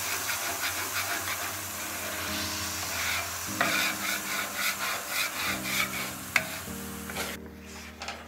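Water sizzling on a warm steel griddle top while a flat scraper is pushed across it in repeated scraping strokes, lifting the cooked-on residue in a deglaze-style clean-up. The sizzle and scraping stop about seven seconds in. Background music with steady tones comes in partway through.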